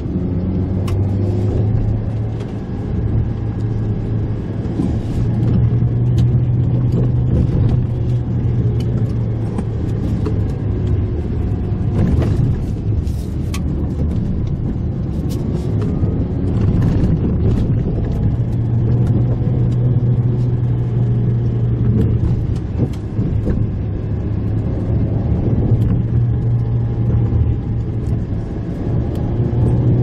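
Mitsubishi Pajero Mini's engine running, heard from inside the cabin as it drives along a rough dirt forest road, its note rising and falling with the throttle. Occasional knocks and rattles come from the bumpy road surface.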